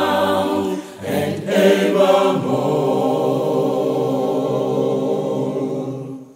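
Voices singing together: after a short break about a second in, they hold a long final chord that fades out just before the end.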